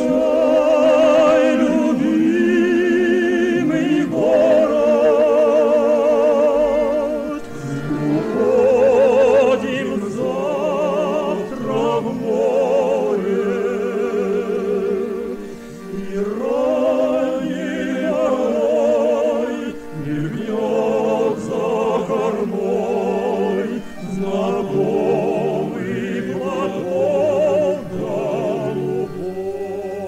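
A group of men singing together with vibrato, each note held for a second or two, accompanied by a bayan (Russian button accordion).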